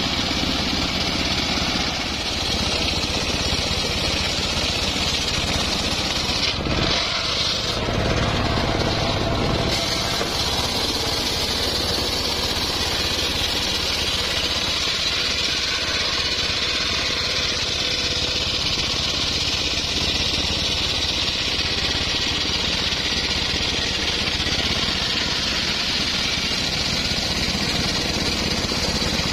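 Homemade circular sawmill running steadily, its large blade ripping a teak log lengthwise.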